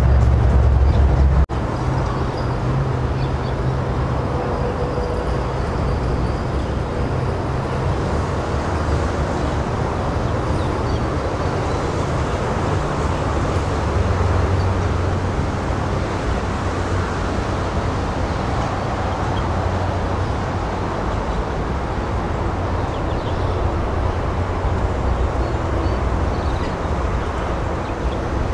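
Steady low rumble with a hiss: outdoor background noise. The rumble drops abruptly about a second and a half in, then goes on evenly.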